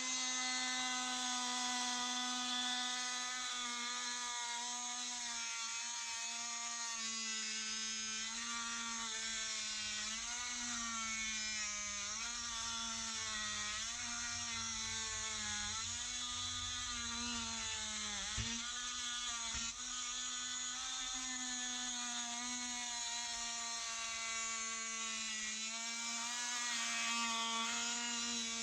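Oscillating multi-tool cutting into wood, a steady buzzing whine whose pitch wavers and dips again and again as the blade bites under load.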